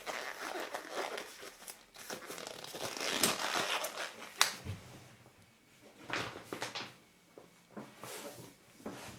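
Crinkling and rustling of something being handled, with a few sharp clicks, loudest in the middle.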